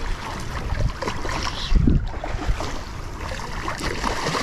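A hooked striped bass thrashing and splashing at the surface close to shore as it is reeled in, with wind buffeting the microphone in low rumbles.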